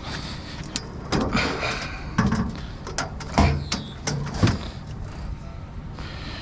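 Scrap metal clanking and scraping as it is bent and folded down by hand, with a cluster of sharp knocks and rattles through the middle, over a steady low hum.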